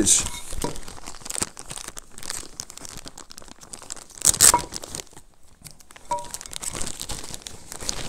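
Clear plastic bag crinkling and rustling as it is handled, loudest about four seconds in, with a few faint short pings.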